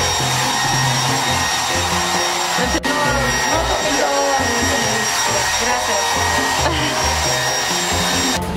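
Hand-held hair dryer blowing steadily, a rushing noise with a thin high whine, briefly interrupted about three seconds in.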